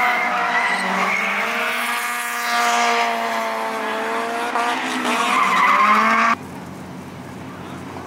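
Drift car's engine revving hard through a slide, its pitch sagging and then climbing again, with the tyres squealing. About six seconds in the sound cuts off abruptly to a quieter, lower, steady engine sound.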